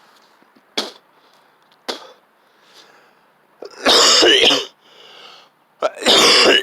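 A man coughing after inhaling cannabis dab smoke: two short coughs, then two loud, harsh coughing fits, each close to a second long.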